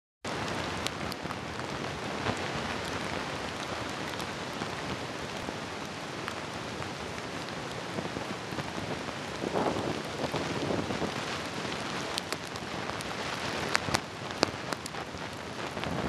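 Steady hiss of driving snow in a near blizzard, with scattered small ticks and a louder rustling stretch about ten seconds in.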